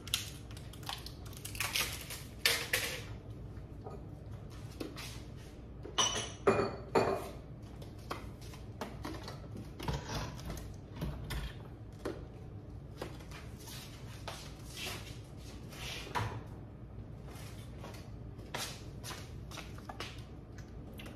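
Scattered clinks and knocks of glass and ceramic containers being picked up and set down on a granite countertop and wooden tray, with a louder run of ringing clinks about six to seven seconds in.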